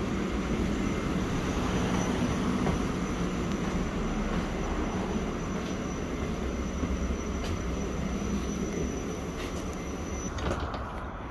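Volvo B7RLE bus's six-cylinder diesel engine idling steadily, heard from inside the saloon. A faint high steady whine carries over it and cuts off about ten and a half seconds in, where the engine sound drops a little as it is heard from outside the bus.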